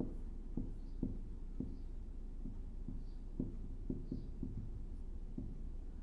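Dry-erase marker writing on a whiteboard: a string of short, irregular taps and strokes of the marker tip, about two a second.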